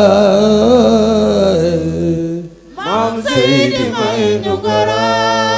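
A male voice sings a long-held Wolof devotional chant through a microphone. About halfway through it breaks off briefly, then comes back with a rising glide into another long-held note.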